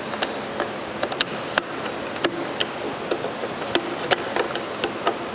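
Irregular sharp metal clicks, two or three a second, from a wrench tightening square nuts onto the countersunk screws that hold a miter trimmer's knife, over a steady background hiss.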